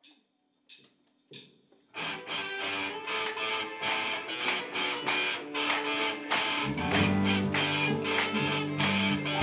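Live rock band playing a song's intro: three evenly spaced sharp clicks count in, then about two seconds in electric guitar, drums and keyboard start with a steady beat. Bass guitar notes join about seven seconds in.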